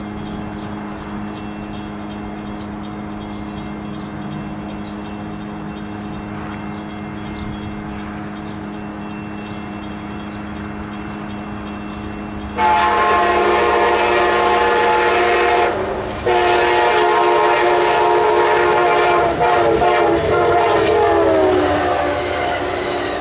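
Amtrak diesel locomotive sounding its multi-note horn in three long blasts with short breaks, starting about halfway through, the chord dropping in pitch as the locomotive passes close by. Before the horn there is only a steady low hum.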